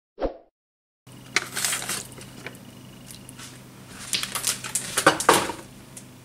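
A brief sound effect right at the start, then kitchen handling sounds: a run of clicks and clinks as things are handled on the counter, over a low steady hum.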